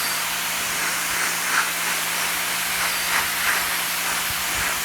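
Pressure washer running, its water jet hissing steadily against concrete, with a steady motor hum underneath.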